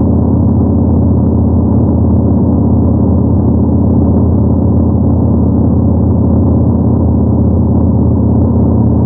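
Yamaha MT-01's 1670 cc air-cooled V-twin running steadily at an even cruising speed. The exhaust note holds one pitch and level throughout, with no gear changes or revving.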